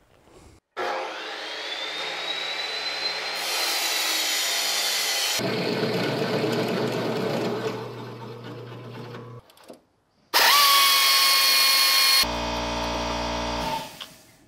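Drill press running and boring through steel channel iron, its motor whine rising as it spins up. The sound comes in several stretches that change abruptly, the loudest a little over ten seconds in.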